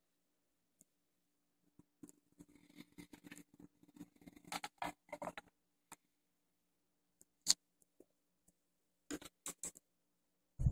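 Faint handling sounds of a JVC QL-A5 direct-drive turntable: soft scraping and rustling as a vinyl record is laid on the platter, with a faint steady hum beneath it, then a few sharp clicks from the turntable's controls near the end.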